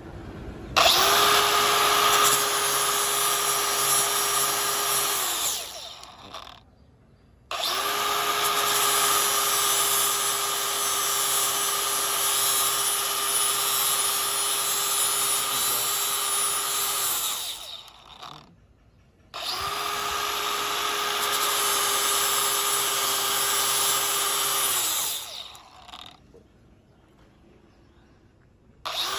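Angle grinder grinding down a weld bead on thin sheet steel, working perpendicular to the bead. It runs in three stretches of several seconds each, winding down between them, and starts up again at the very end.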